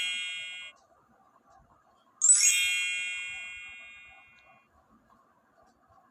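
A bright bell-like ding sound effect played twice: the first is cut off abruptly under a second in, the second starts a little after two seconds and rings out, fading over about two and a half seconds.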